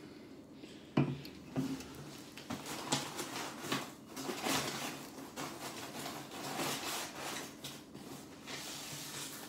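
Hands rummaging through a cardboard box of beer cans and bottles: cardboard rubbing and scraping, with light knocks of the containers being moved, a sharper knock about a second in.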